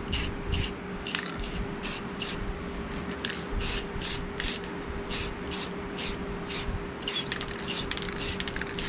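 Aerosol spray can of clear coat hissing in many short bursts, about two to three a second, as a light coat is dusted over freshly painted metal.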